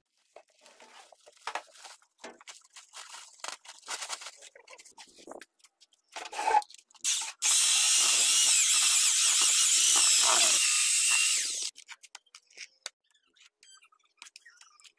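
Electric drill with a paddle mixer stirring mortar in a plastic bucket, running steadily for about four seconds and then stopping. Before it starts there are scattered light knocks and scrapes.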